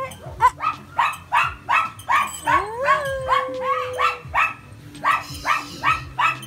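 A dog barking over and over in short, evenly spaced barks, about two or three a second. About two and a half seconds in, a whistle-like tone rises and then holds for a second or so.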